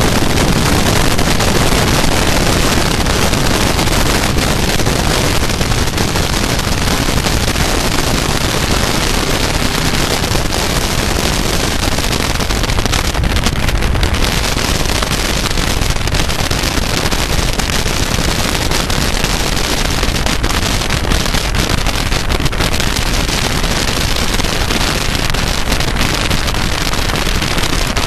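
Loud, steady wind rush buffeting the microphone of a land speed race car slowing down under its deployed drag parachute after a top-speed run on a dry lakebed.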